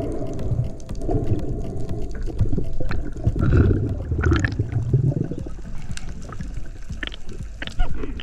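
Sea water sloshing and gurgling around a diver's camera, with scattered sharp clicks.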